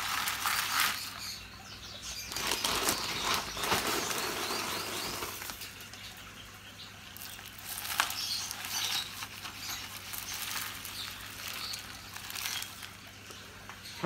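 Parrot seed mix of striped sunflower seeds, peanuts and dried fruit pieces pouring from a scoop onto a clear plastic plate: a dense rattle and patter of seeds hitting plastic and each other, in several pours, loudest at the start.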